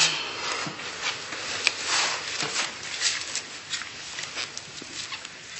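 Soft rustling and small scraping and handling noises, like clothing and objects being moved.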